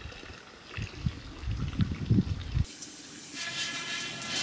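Low, muffled bumps and knocks, then, after an abrupt change, water pouring steadily for the last second or so.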